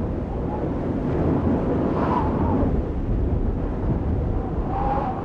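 Storm wind rumbling on the microphone, a steady deep noise. A faint wavering tone is heard about two seconds in and again near the end.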